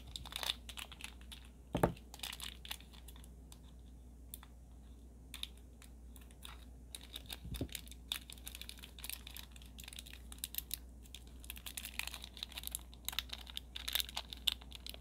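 Tiny plastic toy marshmallow packet being picked at and torn open by fingers: a scattered run of small crinkles and sharp clicks, with two dull knocks about 2 seconds and 7.5 seconds in.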